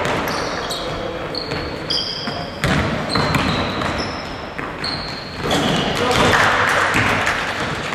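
Basketball shoes squeaking on a hardwood gym floor in many short, high chirps, with the ball bouncing and players' voices in the hall; the voices and general noise grow busier about two-thirds of the way in.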